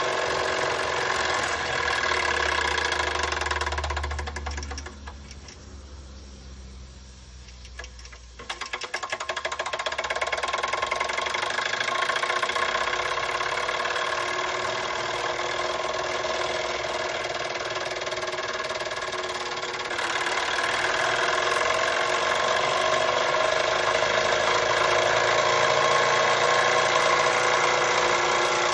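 Doll & Co 348/5 toy steam engine running under steam, a steady mechanical running sound with hiss. About five seconds in it drops much quieter for some three seconds, then picks up again, and it grows louder about twenty seconds in.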